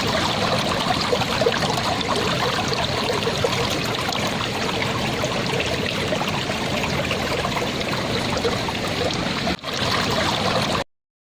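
A shallow stream of water flowing and babbling steadily over stones. It drops out for an instant near the end, then cuts off suddenly.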